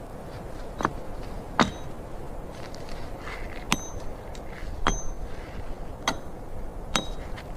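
A series of six sharp knocks, roughly a second apart, several of them followed by a brief high metallic ring, over a steady background hiss.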